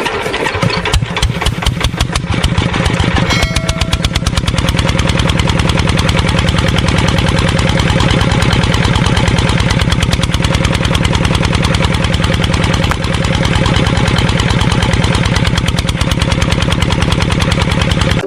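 A small engine running with a fast, even firing pulse. It is uneven for the first few seconds, then settles into a steady run.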